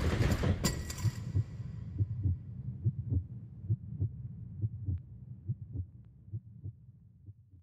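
Heartbeat sound effect: low double thumps in a steady beat a little under a second apart, fading out, following a burst of noise that dies away in the first second.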